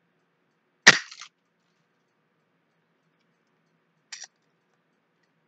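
Wooden rat snap trap snapping shut with one sharp crack about a second in, set off while being baited. A lighter click follows about four seconds in.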